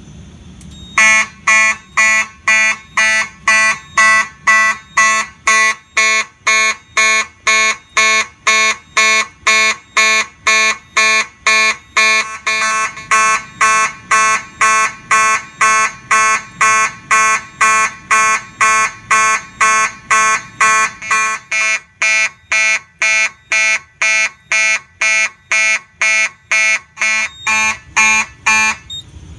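Simplex 2901-9833 fire alarm horn sounding a march-time alarm pattern, about two short, buzzy blasts a second. The pattern starts about a second in and cuts off abruptly near the end.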